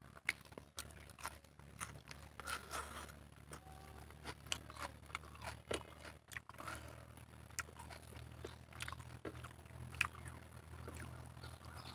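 Close-up eating sounds: chewing with irregular crunches and mouth clicks, and fingers mixing rice against a plate, over a faint low hum.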